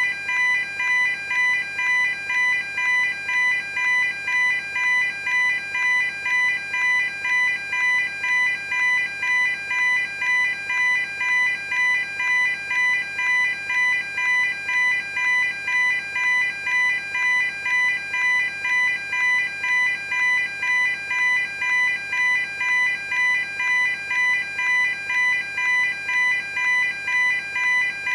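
Railway level crossing warning alarm: an electronic bell tone striking over and over at an even, unchanging beat.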